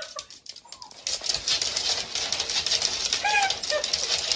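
Chihuahua's claws clicking and scrabbling fast on a hardwood floor as it strains forward, with a few short high-pitched cries near the end.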